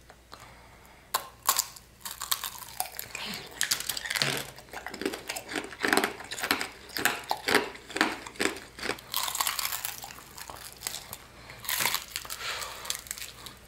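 Hard, glassy tanghulu sugar shell cracking and crunching as candied mandarin oranges and a candy-coated fried chicken drumstick are bitten and chewed: a quick run of sharp crackles and crunches, starting about a second in.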